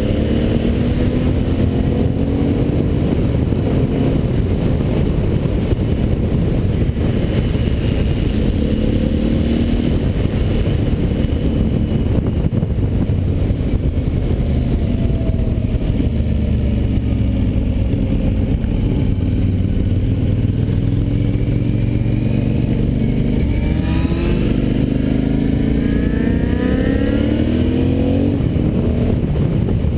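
Motorcycle engine running under way on a winding road, its note rising and falling with the throttle, with several rising sweeps as it accelerates near the end. Heavy wind rush on the bike-mounted camera's microphone runs underneath.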